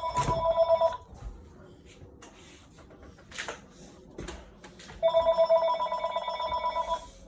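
Telephone ringing: a warbling two-tone electronic ring that lasts about two seconds, ends about a second in and comes again about five seconds in, with a few light knocks in the pause between rings.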